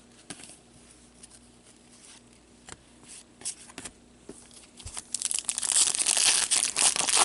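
A few light clicks of cards being handled, then about five seconds in a trading-card pack's wrapper is torn open and crinkled, loud and dense.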